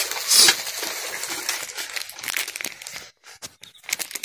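Eating rice by hand from a metal plate: a run of small clicks and crinkly scrapes as fingers and rice work against the plate, with a brief pause about three seconds in.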